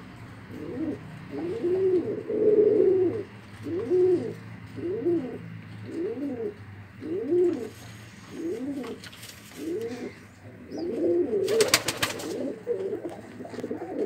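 Domestic pigeons cooing over and over, one low rising-and-falling coo after another, about one a second. Near the end comes a quick run of sharp clicks.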